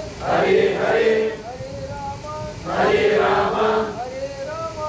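Group chanting of Sanskrit mantras in call and response. A lone voice chants a line with gliding, held pitches, and the gathered voices answer together in a short loud burst. This happens twice, with each answer lasting about a second.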